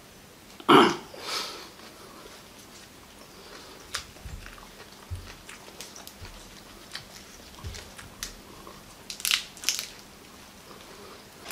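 A man eating raw Agati flowers: a loud crunching bite about a second in, then soft chewing clicks and a few dull knocks. Near the end come crisp crackles as the fleshy petals are torn apart by hand.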